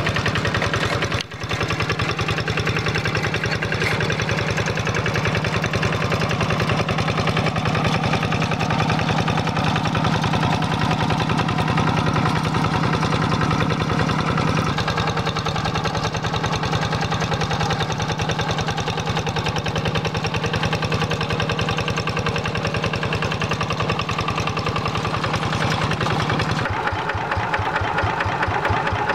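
Single-cylinder diesel engine of a Quick G1000 Boxer two-wheel hand tractor, running steadily under load with an even, rapid knocking beat as it drives its cage wheels through a flooded paddy. The sound breaks off briefly about a second in, and near the end it is heard from right beside the engine.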